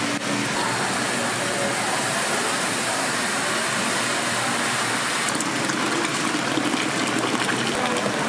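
Liquid gushing steadily from a tap onto cooked tapioca pearls in a jug, with light crackling from about five seconds in.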